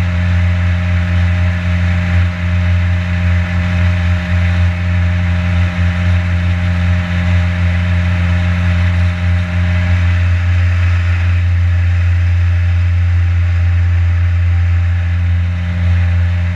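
Boat motor running steadily at cruising speed, a constant low drone with rushing water and wind noise over it.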